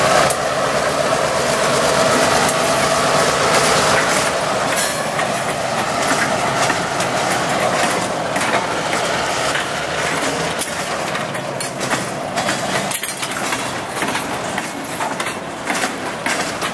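Freight train passing close by: the New England Central diesel locomotives run past at the start, then boxcars roll by with the wheels clacking on the rails in a steady stream of sharp clicks.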